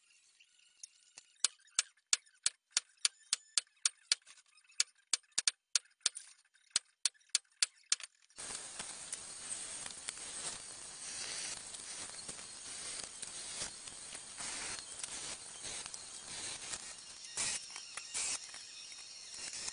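A run of sharp clicks, about three a second, then from about eight seconds in a drill press boring into a stainless steel hinge leaf, a steady grinding hiss of the bit cutting metal.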